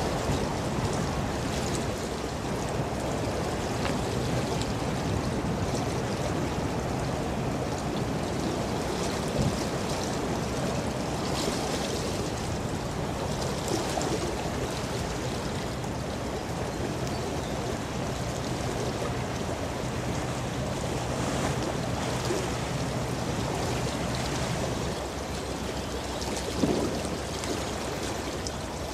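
Steady rushing wash of water, mixed with wind noise, from large container ships passing close and pushing bow waves, with a faint low steady hum underneath that fades out near the end.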